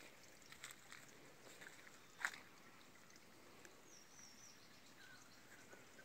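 Near silence with faint footsteps and rustling in forest undergrowth. There is one sharper snap about two seconds in, and a faint high wavering chirp about four seconds in.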